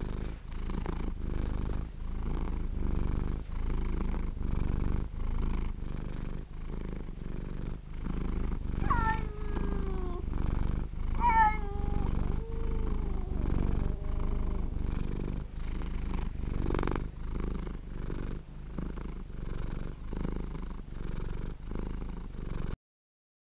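Domestic cat purring steadily, in even pulses about three every two seconds with each breath in and out. Two brief cat calls falling in pitch come around the middle, and the purring stops abruptly near the end.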